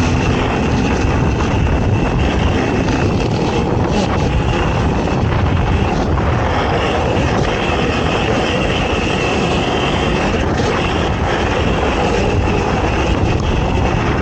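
ATV engine running hard and loud, holding steady with small rises and falls in pitch.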